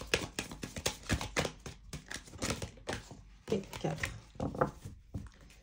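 Oracle cards being shuffled and handled on a table: a dense run of quick taps and flicks.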